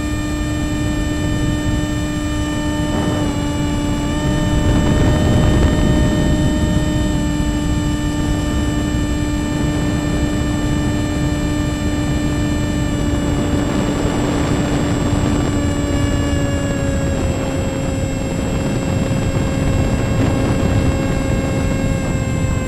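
Electric motor and propeller of a Strix Stratosurfer FPV plane running in flight: a steady whine over rushing wind noise on the onboard camera's microphone. The pitch steps up slightly a few seconds in and eases down a little past the middle as the throttle changes.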